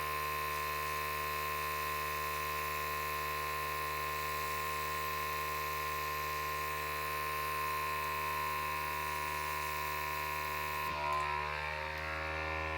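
Handheld electric air blower running steadily, a motor whine over a rush of air, blowing acrylic paint across a canvas in a Dutch pour. The rush of air drops away about eleven seconds in and the whine wavers.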